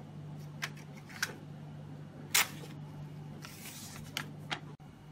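Paper printout strip from a hematology analyzer's built-in printer being taken and handled by a gloved hand: a few sharp clicks and snaps, the loudest in the middle, and a short paper rustle, over a steady low hum from the analyzer.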